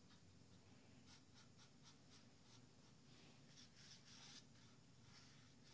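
Faint strokes of a bristle paintbrush spreading clear finish on wood: a series of soft, short swishes at an irregular pace.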